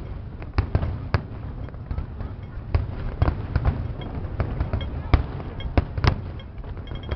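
Fireworks display: a rapid, irregular series of sharp bangs from shells bursting, several a second, over a continuous low rumble. The loudest bangs come about five and six seconds in.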